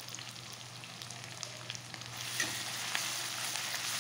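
Spice pastes sizzling in hot mustard oil in a metal kadhai. The sizzle grows louder about halfway through as a perforated ladle starts stirring them, with a few faint clicks.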